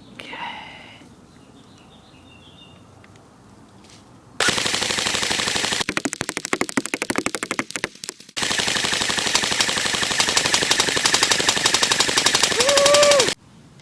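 Airsoft AK47 Krinkov electric gun (AEG) firing BBs on full auto. After a few quiet seconds comes a rapid burst, then a run of quick separate shots, a brief stop, and a long steady burst of about five seconds that cuts off suddenly near the end.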